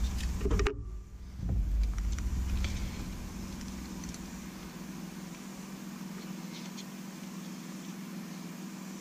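A steady low machine hum, with a few low bumps and rumbles in the first three seconds.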